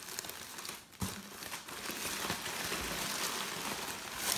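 Packing material crinkling and rustling as hands rummage inside a cardboard shipping box, with a dull thump about a second in and a sharper knock near the end.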